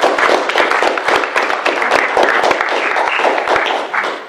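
Applause from a roomful of councillors, many hands clapping together, stopping abruptly just before the end.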